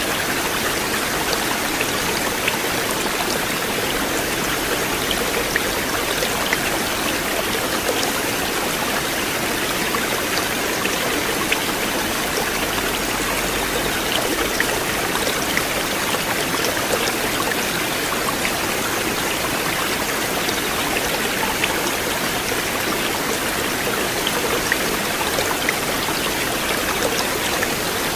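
River water flowing steadily, a continuous rush with small splashes and drips scattered through it.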